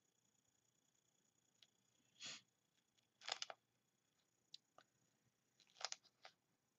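Near silence: room tone with a faint steady high whine, broken by a few soft short rustles and clicks about two, three and six seconds in.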